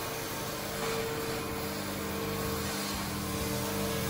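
Oxy-acetylene cutting torch running steadily as it cuts through a steel I-beam, a constant hiss with a low hum beneath it.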